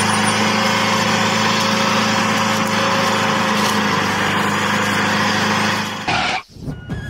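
Small motor of a DIY mini tractor running steadily with an even hum, cutting off about six seconds in.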